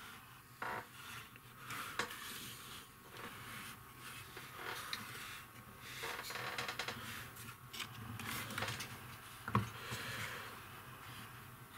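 Carved wooden reindeer figurines being picked up, set down and slid about on a wooden plank by hand: light scattered knocks and scrapes, with the sharpest knock about three quarters of the way in.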